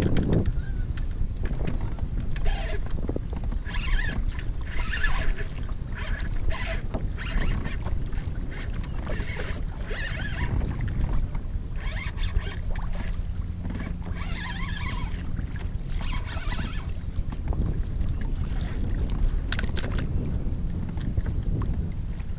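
Wind buffeting an action-camera microphone over choppy water lapping against a plastic kayak, a steady low rumble with short brighter bursts of hiss every second or two.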